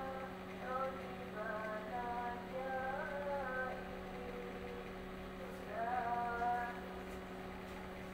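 A woman singing over background music, with a steady low electrical hum underneath.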